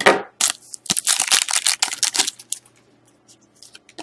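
Foil wrapper of a Titanium hockey card pack being torn open and crinkled: a dense run of crackling for about two seconds, then a few soft rustles as the cards are handled.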